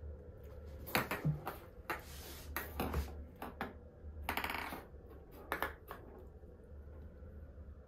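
Kittens at play on a hard tile floor: scattered light clicks and clatters, with a short rattle about four and a half seconds in.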